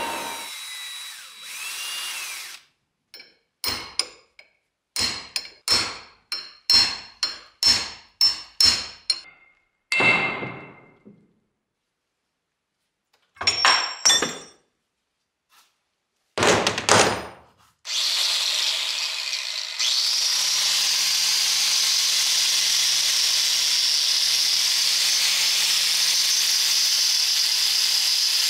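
A drill press spinning a pink abrasive stone against a steel hammer head, winding down. Then a run of sharp metallic knocks with ringing, about two a second, and a few more after a pause. About two-thirds of the way in an angle grinder starts and runs steadily, grinding the hammer's claw.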